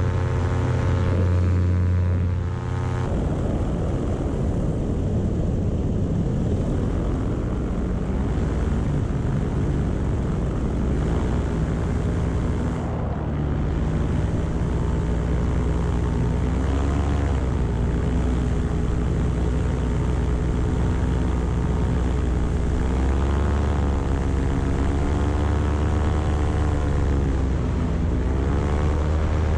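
Paramotor engine and propeller running steadily, its note shifting about three seconds in and then rising and falling several times in the second half.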